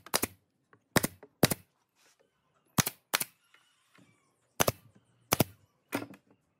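Pneumatic brad nailer firing brads into wood: about nine sharp shots at an uneven pace, often in pairs about half a second apart, as a round plywood disc is nailed to the end of a beam.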